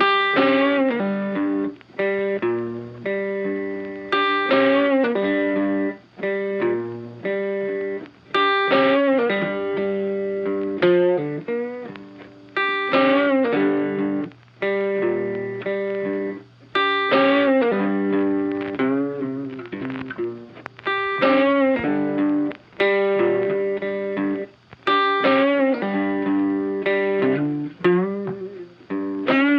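Funky background music led by electric guitar through effects, a repeating phrase that comes round about every four seconds.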